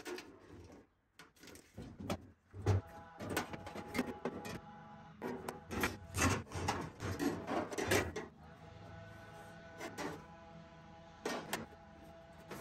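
Irregular clicks, taps and rubbing from hand work with a tape measure and marker on the bare sheet metal of a 1967 Chevy C10 cab's floor and inner cowl, busiest in the middle.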